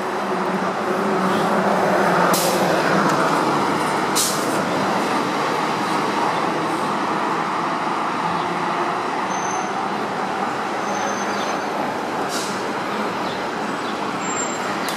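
New Flyer XD40 Xcelsior city bus pulling in to a stop and standing with its diesel engine running, with two short, sharp air-brake hisses about two and four seconds in. Two brief high beeps come near the middle.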